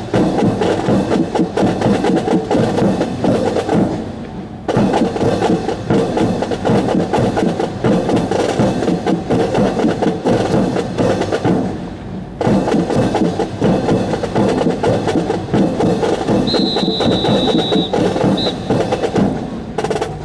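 Military drill-team drumming, a fast snare-drum cadence, mixed with the wooden clacks of rifles being slapped and handled in a rifle drill. The drumming breaks off briefly twice, about four and twelve seconds in, and a short high steady tone sounds about three-quarters of the way through.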